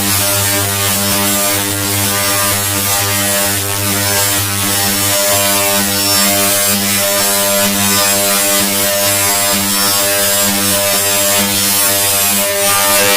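Harsh, loud buzzing drone from audio pushed through an extreme distortion effect: a low pitched buzz thick with overtones, under a constant hiss.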